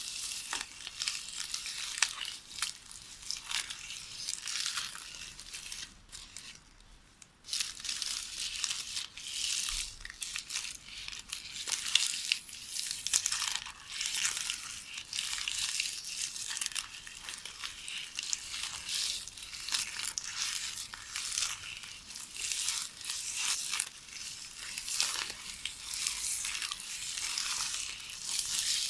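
VHS videotape being knitted by hand, rustling and crackling in quick, irregular crinkles, with a brief lull about seven seconds in.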